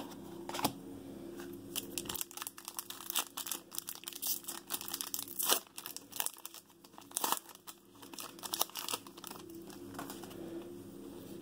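Foil wrapper of a Panini football trading-card pack being torn open and crinkled by hand, with irregular crackling throughout.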